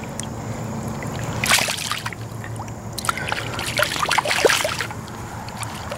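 Water splashing and sloshing as a largemouth bass is released back into the pond and kicks free. There are two bursts of splashing, a short one about a second and a half in and a longer one from about three seconds to near the end.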